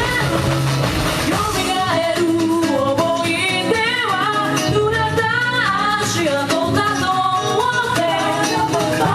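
Pop song with a singing voice playing as dance music, with a steady bass line under a winding sung melody.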